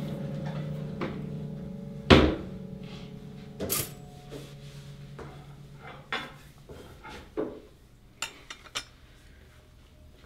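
Kitchen clatter of dishes and a cupboard: a sharp knock about two seconds in, another near four seconds, then scattered lighter clicks and knocks. A low steady hum fades away underneath during the first half.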